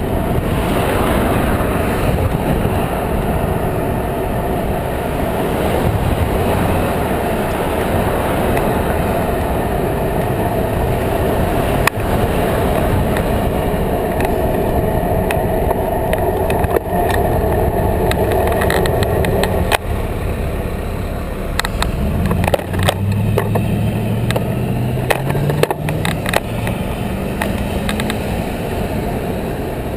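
Wind rushing over a cyclist's GoPro microphone while riding in road traffic, with the steady noise of car engines and tyres. In the second half a vehicle's engine rises steadily in pitch as it accelerates, and a few sharp clicks and knocks come from the bike.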